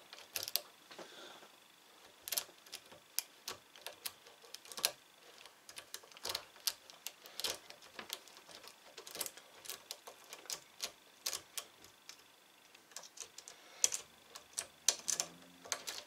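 Lock pick and tension wrench working in the keyway of a cheap brass padlock: an irregular run of sharp metallic clicks and ticks, one to three a second, with a short lull about twelve seconds in. The lock is still being picked and has not yet opened.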